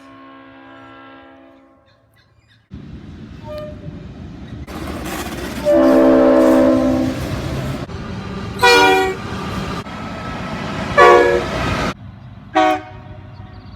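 South African train horns sounding over the rumble of a moving train. A faint horn opens, then a loud, longer multi-tone blast comes about six seconds in, followed by three short toots.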